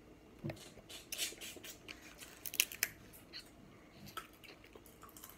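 Scattered sharp clicks and crackles of seafood-boil food and snow crab being picked at by hand and eaten close to the microphone, with a quick cluster of louder cracks about two and a half seconds in.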